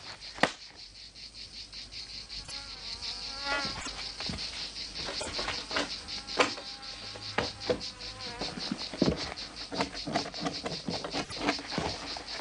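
Insects chirring steadily in a high, fast-pulsing drone, with sharp knocks scattered through it.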